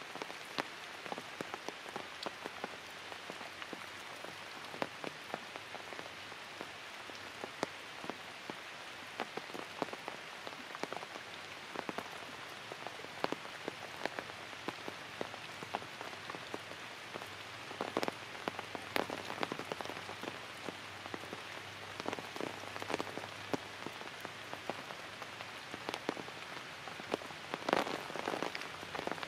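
Light rain falling on forest leaves: a steady hiss with many separate drops ticking throughout, and a few louder drips near the end.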